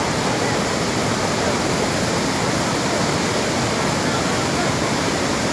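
Fast-moving floodwater rushing: a steady, even wash of water noise with no breaks.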